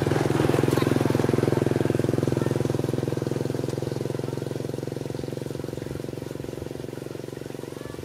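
A small engine running steadily with a fast pulsing beat, loudest in the first couple of seconds and then slowly fading as it draws away.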